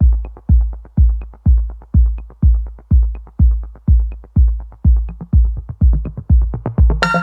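Electronic dance music: a steady deep kick drum about twice a second with light ticks between the beats, and a bright synth chord coming in near the end.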